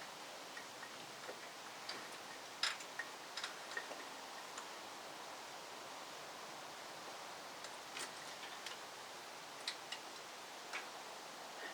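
Scattered light clicks and taps at irregular intervals, the sharpest about three seconds in, from tools and parts being handled while an engine is fitted back into its bay, over a steady background hiss.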